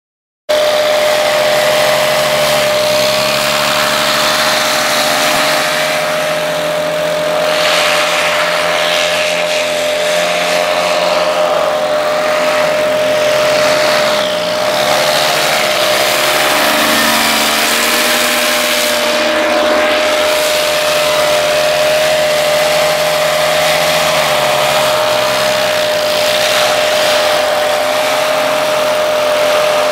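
Two-stroke paramotor engines and propellers buzzing as the gliders fly low passes, their pitch rising and falling repeatedly as they throttle and pass by. One steady high tone holds underneath throughout.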